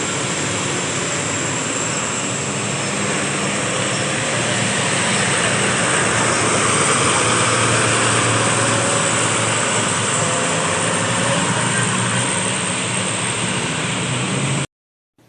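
Large tour bus's diesel engine running loudly and steadily, a low engine drone with a faint high whine over it; the sound cuts off abruptly near the end.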